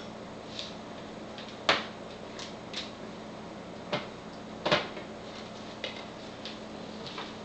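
Scattered hard-plastic knocks and clacks: handheld Milwaukee pH and ORP meters set down and slid on a countertop and their electrode probes knocked against a glass and a plastic container. About eight separate knocks, the loudest a little past halfway, over a faint steady hum.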